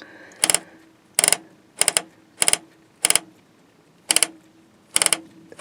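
Drum brake's star-wheel self-adjuster being turned out, the adjuster lever snapping over its teeth: a run of quick ratcheting clicks about every half second to a second, eight runs in all.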